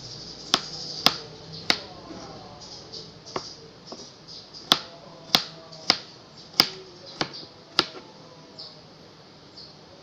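Kitchen knife dicing cucumber on a cutting board: sharp knocks of the blade hitting the board, three in the first two seconds, then a quicker run of six in the middle.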